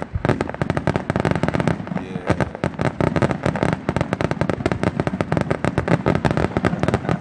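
Fireworks barrage: a fast, dense string of loud bangs, many a second without a break, from a volley of aerial shells bursting together.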